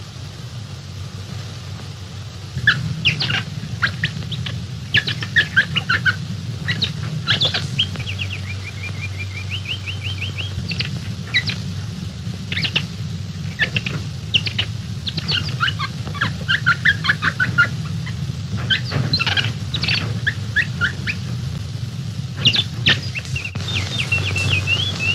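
Jungle bird calls: many short chirps and trills, with runs of quick repeated whistled notes, starting a few seconds in and going on throughout. Under them is a steady low hum of old film sound.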